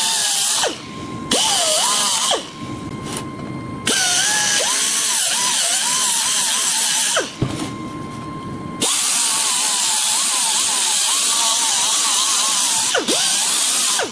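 A handheld power tool running in four long bursts with short pauses between, its pitch wavering as it is loaded against the work.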